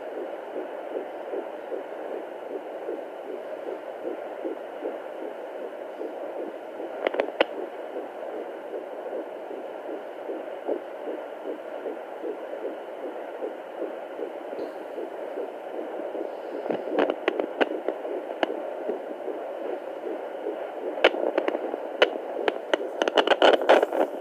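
Fetal heartbeat at 14 weeks of pregnancy, picked up by a Doppler monitor: fast, even pulses over a steady hiss. Bursts of crackling clicks come in about 7 seconds in and again from about 17 seconds on, thickest near the end.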